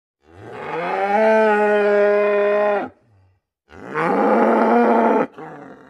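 A cow mooing twice: a long moo that rises in pitch at first and then holds steady, and after a short pause a second, shorter and rougher moo that trails off faintly.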